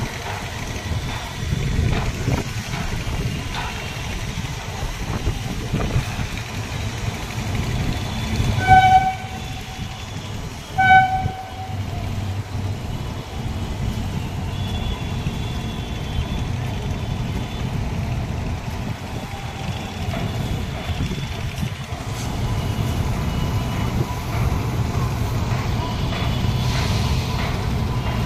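Train running across a steel truss bridge, a steady low rumble, with a horn sounding two short blasts about two seconds apart near the middle.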